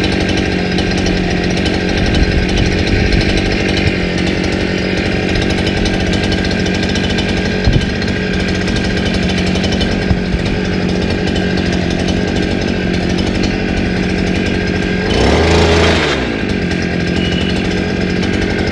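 Brush cutter engine running steadily with its cutting attachment not properly seated on the drive shaft, a vibration noise that signals the coupling is not joined right and that the shaft will wear if it is run this way. About fifteen seconds in it revs up briefly, then drops back.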